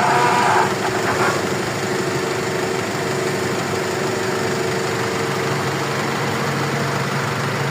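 Heavy construction machinery engine running steadily at about idle speed, a constant drone.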